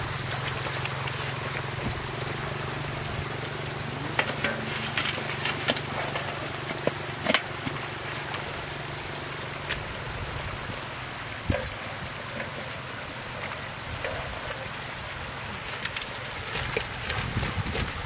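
Shallow water running and trickling over muddy ground, with scattered light clicks and knocks from a wicker basket being handled and boots stepping. A steady low hum fades out about halfway through.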